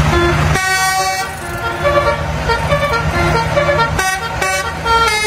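Fuel tanker truck's horn tooting a quick run of short notes at changing pitches, over the steady low running of its engine.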